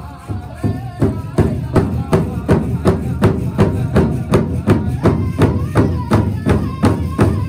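Powwow drum group singing together over a large hand drum struck in unison with beaters, a steady beat of about three strikes a second that grows stronger about a second in.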